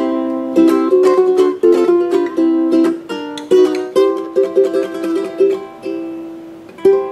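PONO MPT-E tenor ukulele playing a tune of quickly plucked notes and chords, ending with a last chord just before the end that is left to ring out and fade.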